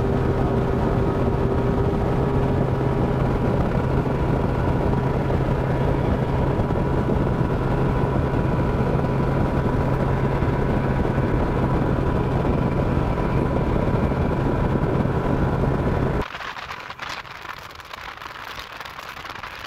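Mercury 200 two-stroke V6 outboard running at high speed, about 45 mph: a loud, steady drone. About sixteen seconds in, the sound cuts to a much quieter recording with wind on the camera's own microphone.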